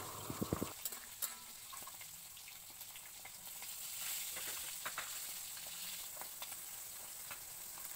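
Sardines and sliced onions in chilli sauce sizzling faintly in a hot pan, a steady hiss. A slotted spatula stirring gives a few light clicks against the pan, mostly in the first second.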